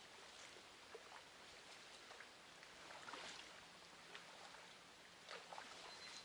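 Near silence: a faint outdoor background hiss with scattered brief, soft ticks and chirps.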